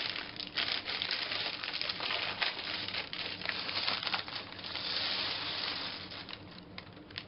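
Clear plastic bag crinkling while small plastic building bricks rattle and clatter inside it and spill onto a pile of bricks. The clatter runs as dense clicking, with a steadier pouring rush about five seconds in.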